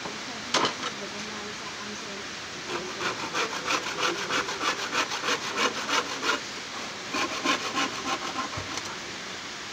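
Handsaw cutting through a thin wooden slat in quick back-and-forth strokes, about three a second, in two runs with a short pause between. A single knock comes about half a second in.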